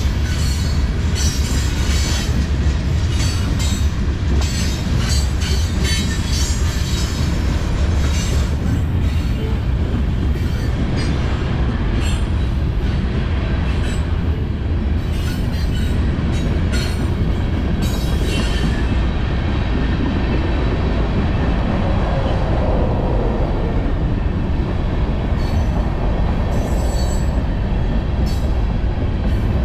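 Freight train's covered hopper cars rolling past close by: a steady, heavy rumble of steel wheels on rail, with frequent clicks and clatter from the wheels that thin out in the second half. A faint, high-pitched wheel squeal comes and goes.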